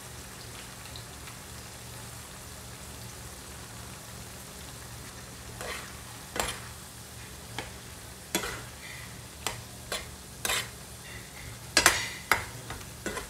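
Ground beef with diced potatoes and carrots sizzling steadily in a frying pan. A little over halfway in, a spatula starts stirring it, with a series of sharp scrapes and knocks against the pan, the loudest near the end.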